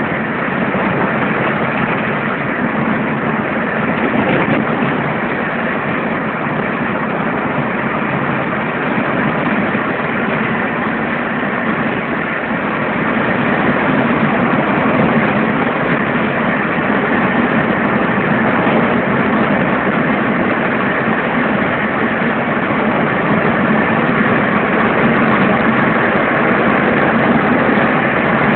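Steady engine and tyre noise inside the cabin of a moving car, growing a little louder about halfway through.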